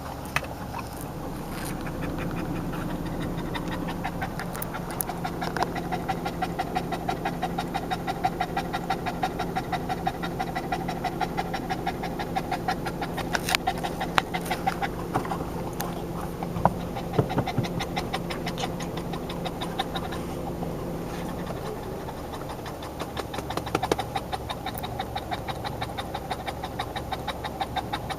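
Boston terrier panting fast and steadily after exercise, with a brief easing about two-thirds of the way through.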